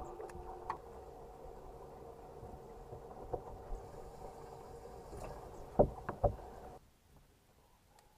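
A boat motor running with a steady hum of several tones, with a few knocks, the two loudest about six seconds in; the hum then cuts off suddenly.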